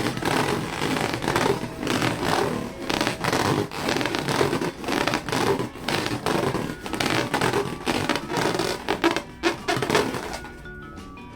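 Rubber balloons being rubbed and squeezed by hand: irregular scratchy, crackling strokes, several a second, which stop near the end.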